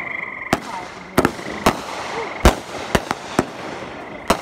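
Fireworks going off: a ragged series of about ten sharp bangs and pops over four seconds, the loudest about two and a half seconds in.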